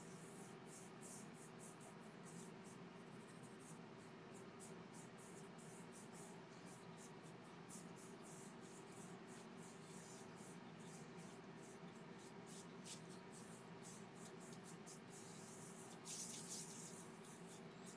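Faint, quick repeated strokes of a cloth rubbing Danish oil into the underside of a yew bowl, with a longer rub near the end, over a steady low hum.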